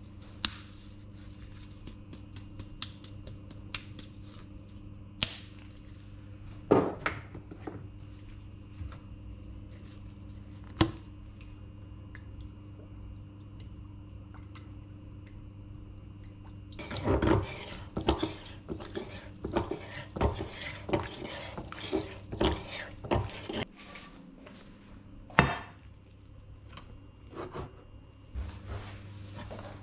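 Kitchen handling sounds as chicken is seasoned in a stainless steel mixing bowl: occasional sharp clinks and knocks, then several seconds of busy clattering and rubbing a little past halfway, and one more knock near the end. A steady low hum runs underneath.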